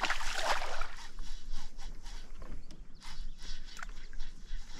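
Water splashing and lapping around a small fishing boat, loudest in the first second, with scattered light clicks of fishing tackle being handled.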